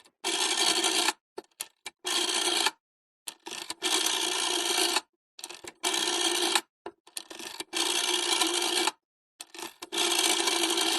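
Old-style telephone's mechanical bell ringing in six bursts of about a second each, with short gaps and small clicks between the rings.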